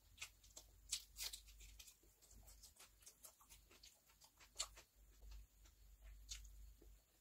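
Quiet eating sounds: wet clicks and smacks of chewing and lips, picked up close by a clip-on microphone, with a few sharper clicks standing out.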